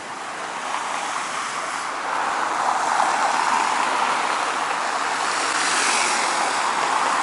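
A steady rushing hiss of outdoor noise with no voice, a little louder from about two seconds in.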